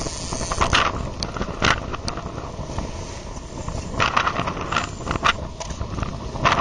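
Boat motor running with wind on the microphone, and bursts of water splashing as a king salmon thrashes at the surface beside the boat.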